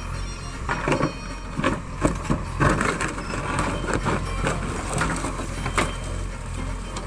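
JCB 3DX backhoe loader working soil: a steady low engine rumble under irregular knocks and scraping.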